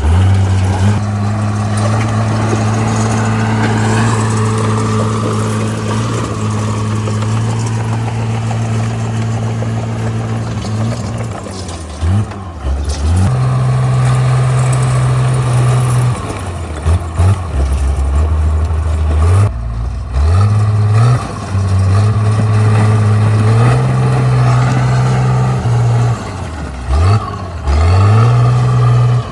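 Komatsu D37P bulldozer's diesel engine working under load, its note stepping up and down several times as it revs and eases off.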